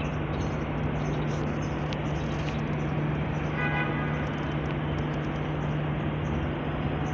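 Steady city street noise: a constant low machine hum under a wash of traffic sound.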